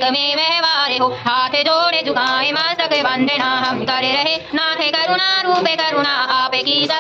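Voices singing a Hindu devotional chant in one continuous melodic line.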